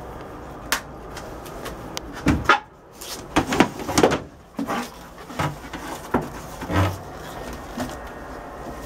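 Cushion-topped lid of a fiberglass cockpit storage hatch being lifted open and handled: a run of knocks and clatter, the loudest a couple of seconds in, with more light knocks a few seconds later.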